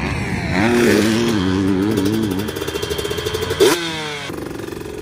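Freshly rebuilt KTM 150 SX two-stroke dirt bike engine running while the bike stands still, its revs wavering up and down under small throttle movements. About three and a half seconds in it is given one sharp blip of the throttle, the revs jump and fall away, and it settles to a steadier idle.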